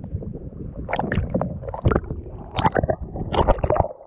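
Choppy water sloshing and splashing around a waterproof camera held at the surface, with gurgling as it dips underwater near the end.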